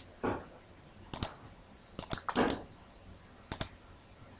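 Computer mouse and keyboard clicks: a few sharp clicks in small groups, about a second apart, with soft faint noises between them.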